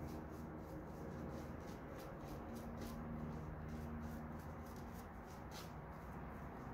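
Shaving brush whipping soap lather on the face and neck: faint, quick swishing strokes, a few a second.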